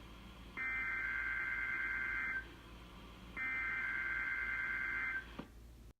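EAS/SAME digital header of a NOAA Weather Radio Required Weekly Test: two bursts of buzzy two-tone data, each nearly two seconds long with about a second's gap between them. These are the coded bursts that activate weather alert receivers. Near the end comes a click, and the audio cuts off.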